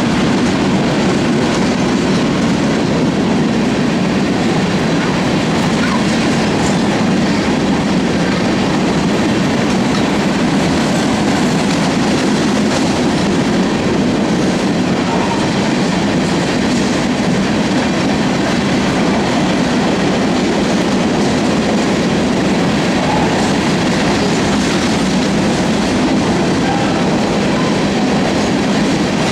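Freight cars of a loaded sand train rolling steadily past, steel wheels clacking and rumbling on the rails in a continuous loud rush.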